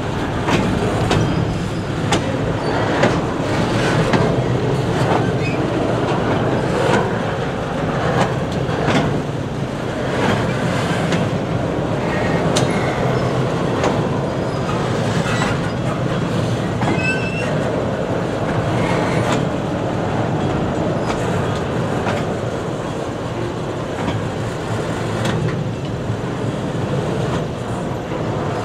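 Loaded double-stack intermodal well cars rolling past, their wheels clattering over and over on the joints of old jointed rail, with a brief wheel squeal about two-thirds of the way through.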